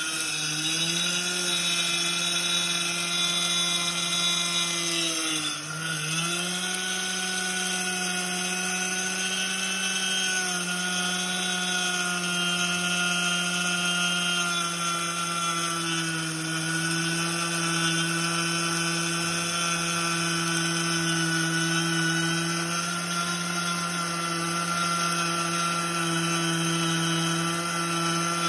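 Miller 2500 electric grain mill running and grinding rye into wholemeal flour: a steady motor whine over a hiss. Its pitch dips briefly about half a second in and again about six seconds in, then holds steady.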